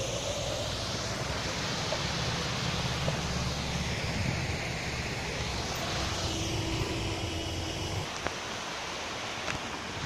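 Steady rush of a small waterfall running down a rock slab, with a low rumble underneath that drops away about eight seconds in.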